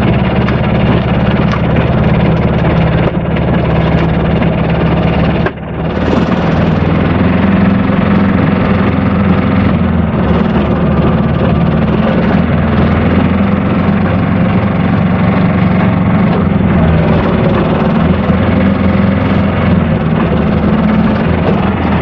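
The Aixam Mega Multitruck's small Kubota 400 two-cylinder diesel engine running steadily while the van is driven, heard from inside the cab. There is a brief sudden dropout about five and a half seconds in.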